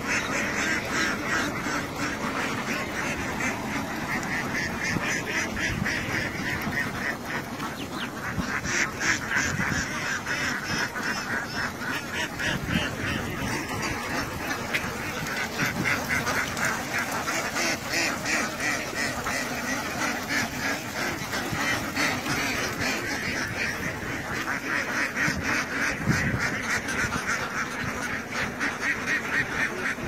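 A large flock of domestic ducks quacking continuously, many calls overlapping into a dense chatter.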